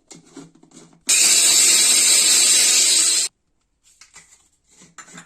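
Electric kitchen mixer grinder (mixie) running for about two seconds, grinding whole coriander seeds to a coarse powder, starting and stopping abruptly. Faint clinks and rattles of the jar before and after.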